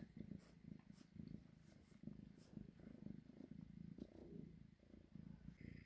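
Tortoiseshell kitten purring faintly, a low pulsing rumble that goes on without a break.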